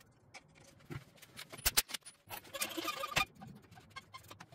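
Sharp metallic clicks and a brief rattle of wheel nuts and tools being handled as a wheel is fitted onto a hub.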